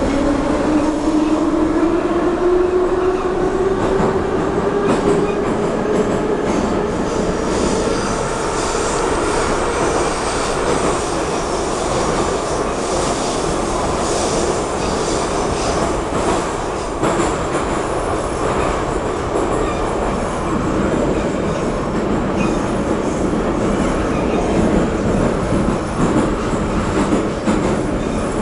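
Moscow metro train heard from inside the passenger car. The traction motors whine, rising in pitch as the train picks up speed over the first six seconds or so. Then comes a steady running noise of wheels on rails in the tunnel.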